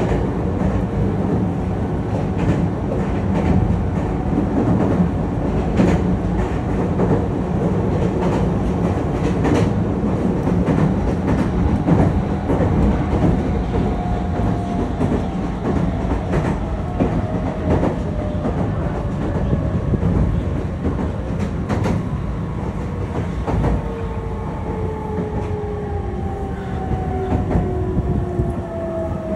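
Meitetsu electric commuter train heard from inside the carriage while running: a steady low rumble of wheels on rail, with scattered sharp clicks from the track. In the second half, two tones fall slowly in pitch, the motor whine of the train slowing as it approaches a station.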